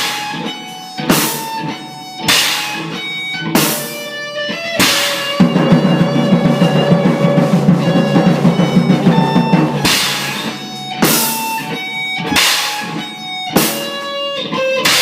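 Live electric guitar and drum kit playing a rock riff, with loud crash accents about every second and a bit. In the middle there is a stretch of fast, continuous drumming under the guitar, then the spaced accents return.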